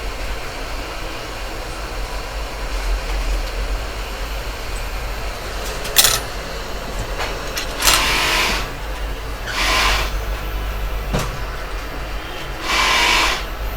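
Steady low mains-like hum with three short bursts of hiss and two sharp clicks, from bench work on a phone circuit board.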